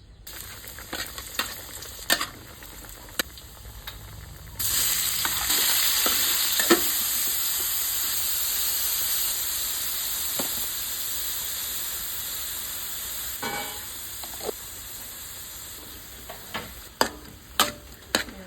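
Stir-fry of beef and green beans in a hot pan: a few scattered clicks, then about four and a half seconds in a loud sizzle starts suddenly, as of food going into hot oil, and slowly dies down. Several sharp clacks of stirring near the end.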